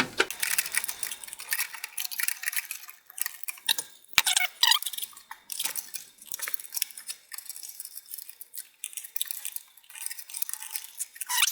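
Small plastic clicks and rattles of a nylon zip tie being fastened around a solid state drive in a metal drive bay and trimmed with small cutters, with a sharper click about four seconds in.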